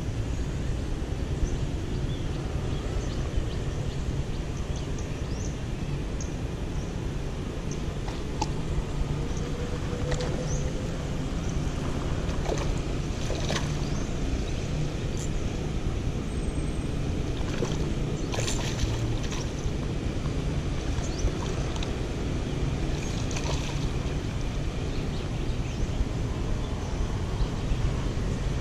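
A hooked hampala barb splashing briefly at the water's surface a few times, over a steady low rumble.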